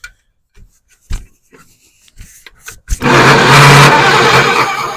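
Starter motor of a 1964 Farmall Cub cranking the engine for about two seconds, loud and steady, starting about three seconds in after a few small clicks. The engine is being turned over to test for spark at a pulled, grounded spark plug.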